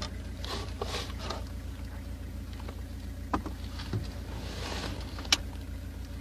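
Steady low mechanical hum, like a running engine, with a couple of short knocks and one sharp crack about five seconds in.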